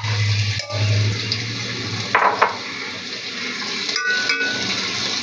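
Sliced onions sizzling steadily in hot mustard oil in a pan, stirred with a spatula that scrapes against the pan about two seconds in.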